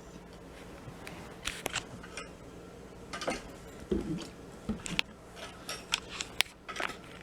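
Scattered light clicks and rustles with a few soft thumps, made by a cat pouncing on and batting a toy.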